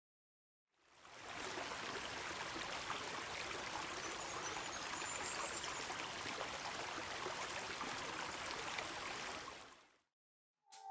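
Steady rush of running water, like a flowing stream, fading in about a second in and fading out shortly before the end.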